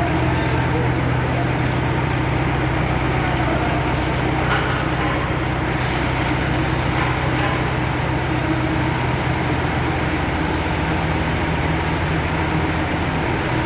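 Heavy machine engine running steadily at a constant speed, with a faint clink about four and a half seconds in.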